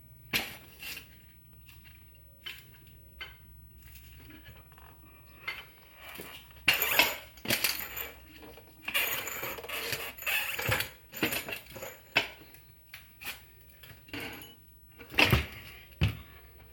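Metal tools and parts clinking and clanking during a motorcycle teardown: scattered sharp knocks, busiest around the middle, with two loud knocks near the end.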